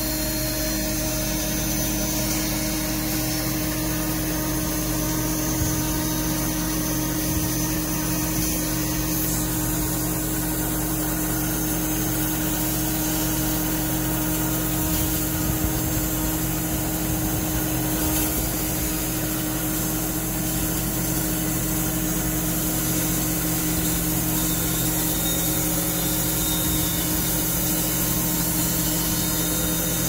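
PT-130 band sawmill running steadily, its band blade cutting lengthwise through a large log.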